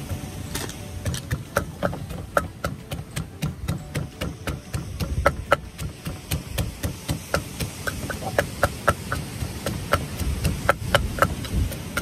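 Wooden pestle pounding in a wooden mortar (krok), a run of sharp knocks about three a second. It is crushing garlic and chillies for a Thai seafood dipping sauce.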